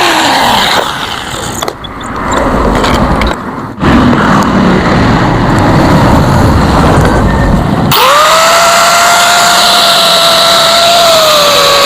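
Handheld electric power tool at work on metal: a rough, low noise with a short break near the start, then about two-thirds of the way through its motor spins up quickly and runs at a steady high whine that dips slightly near the end.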